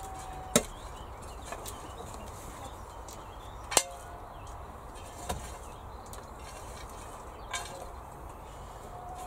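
A spade chopping into soil in four sharp knocks, the loudest about half a second in and another near four seconds, with a few fainter clicks between. Hens call briefly in the background, once near four seconds and again at the end.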